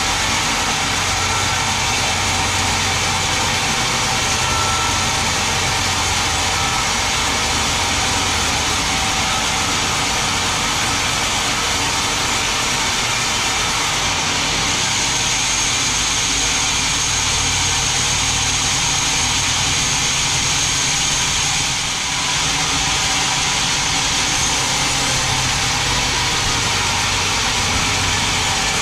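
Large band sawmill cutting lengthwise through a big mahogany log, a steady, unbroken noise of the blade and its drive. A thin high whine joins for about ten seconds midway.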